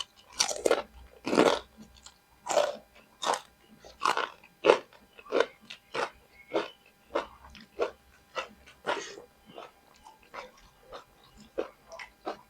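Close-up chewing of crispy anchovy peyek crackers with lotek and rice: a steady run of sharp crunches, about one or two a second, growing softer in the last few seconds.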